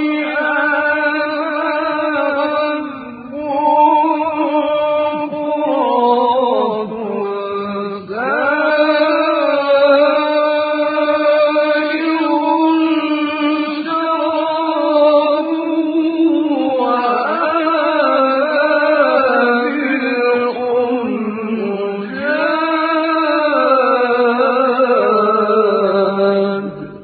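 A man's solo voice chanting Quran recitation in the slow, melodic mujawwad style: long ornamented notes that glide and waver in pitch, with short breaks for breath about three and eight seconds in. The voice stops just before the end.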